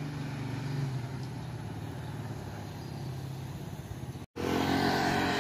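Motor vehicle engines running in street traffic: a steady engine hum, which breaks off briefly a little over four seconds in and comes back as louder traffic noise.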